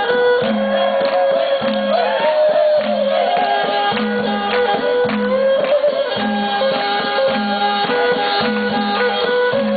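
Thai-Khmer folk music for the rueam trut dance: a wavering, bending melody over a pulsing drone, with steady drum and hand-percussion beats.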